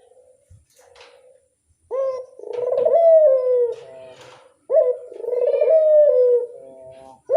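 Domestic ringneck dove (burung puter) cooing. A few soft short coos come first, then two loud, long coo phrases of about two seconds each, each rising and then stepping down in pitch. A third phrase begins near the end.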